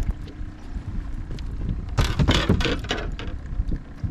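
Wind rumbling on the microphone, with a burst of knocks and rattling lasting about a second, starting about two seconds in, as a freshly caught crappie is brought aboard and handled on the boat deck.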